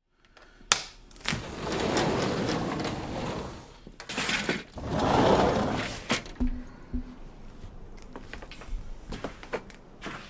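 Sliding glass door being unlatched and opened: a couple of sharp clicks, then two drawn-out slides of about two seconds each along its track, followed by a few smaller knocks and clicks.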